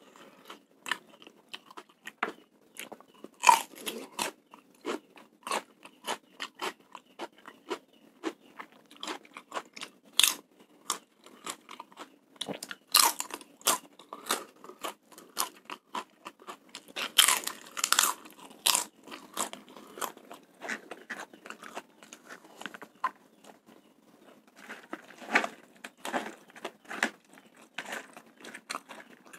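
Close-miked chewing of mouthfuls of fried rice, with irregular crunchy bites and wet mouth clicks, a few louder crunches coming in clusters.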